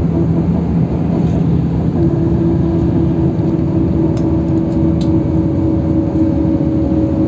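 Steady engine and tyre rumble heard from inside a LiAZ 529265 city bus moving at speed on a highway. A steady whine joins in about two seconds in.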